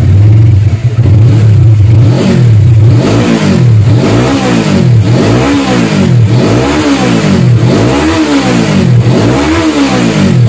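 Suzuki Inazuma 250's parallel-twin engine idles, then from about two seconds in is revved over and over in a steady rhythm of rising and falling throttle blips. It is heard through its stock silencer, hollowed out by hand, with the catalytic converter kept in, which leaves the note softer.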